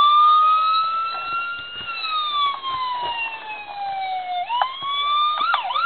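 Electronic four-tone police siren built into a 1/18 scale diecast model car, sounding a slow wail that rises, falls and rises again, then switching to a fast yelp near the end.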